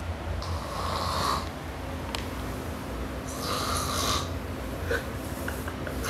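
A person snoring: two long, rasping breaths about three seconds apart, over a low steady hum.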